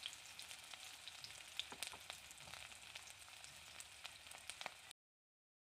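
Chopped onions frying in hot mustard oil in a kadai: a faint, steady sizzle with small crackling pops, cutting off abruptly near the end.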